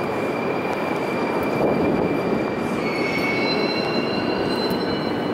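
Metro train running through the station: a steady rumble with thin, high wheel squeal tones that shift pitch about three seconds in.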